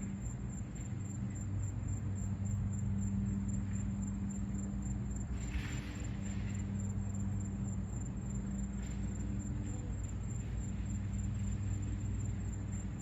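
Outdoor ambience dominated by a steady low engine-like drone, with a thin, steady high-pitched tone above it and a brief hiss about halfway through.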